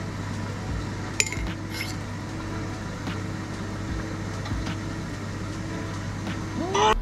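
A sharp clink about a second in and a fainter one just after, over a steady low hum; a short rising tone sounds near the end.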